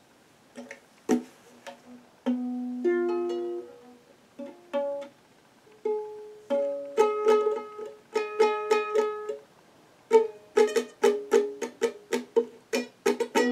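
A plucked string instrument: single notes and short chords picked out one at a time and left to ring, then quick, steady strumming from about ten seconds in.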